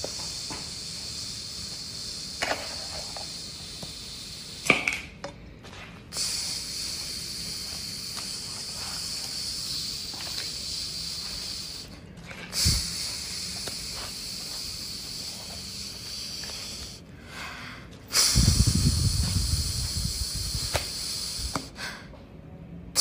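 Oil sizzling in a frying pan: a steady high hiss broken by a few short pauses, with a louder low rumble for a few seconds near the end.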